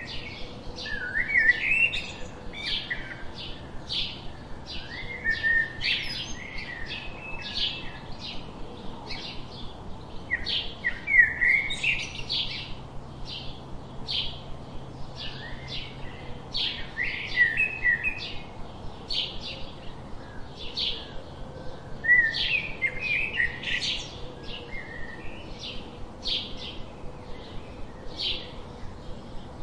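Songbirds chirping: a steady run of short, high chirps about two a second, with warbling song phrases from another bird breaking in every few seconds.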